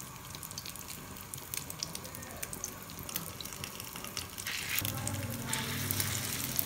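Egg-coated chicken shami kababs shallow-frying in hot oil: a steady sizzle with scattered crackles and pops. About four and a half seconds in, the sizzle gets louder as another egg-dipped kabab goes into the oil, and a low hum comes in with it.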